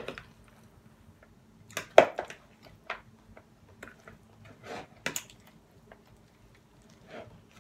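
Spoon tossing salad in a large clear bowl: scattered clicks and taps of the utensil against the bowl amid rustling leaves, the loudest knock about two seconds in and another about five seconds in.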